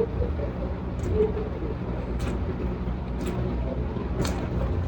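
A person eating close to the microphone: wet chewing with sharp mouth clicks and smacks about once a second, over a steady low hum.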